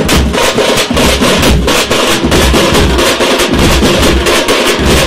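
A street drum band playing together: large bass drums beaten with sticks give deep, regular beats a few times a second under a fast, dense rhythm on snare-type side drums.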